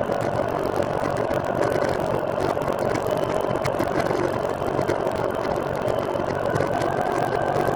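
Steady rolling noise from a moving recumbent trike: tyre, drivetrain and wind noise at an even level, with a faint steady whine.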